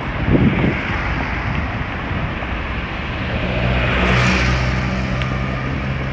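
Road traffic noise: a steady rush of tyre and wind noise, with a low engine hum setting in about three seconds in and a car passing close around four seconds.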